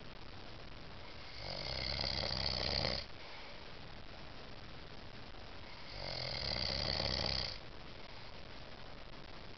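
A man snoring in his sleep: two long snores about four and a half seconds apart, each swelling over a second or so and then cutting off sharply.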